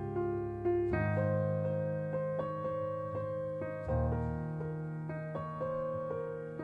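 Background piano music: sustained chords with repeated notes, the chord changing about every three seconds.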